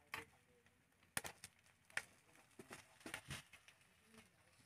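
A handful of faint, scattered clicks of a metal spoon tapping and scraping against a multi-cup cake mould, with a faint bird call in the background.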